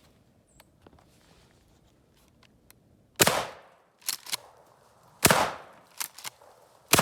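12-gauge shotgun firing birdshot: three loud shots about two seconds apart, starting about three seconds in, each with a short ringing tail. Shorter sharp clacks come in pairs between the shots.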